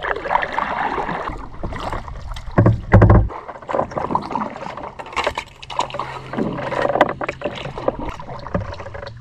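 Kayak paddle strokes splashing and dripping in calm water, in an irregular rhythm, with a heavy low thump about three seconds in.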